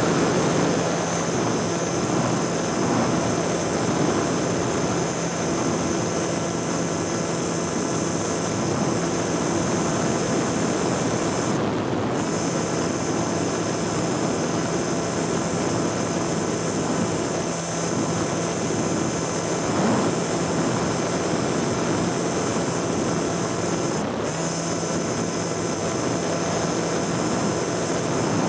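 Small aircraft in flight heard from its onboard camera: the motor and propeller running at a steady pitch over a constant rush of wind.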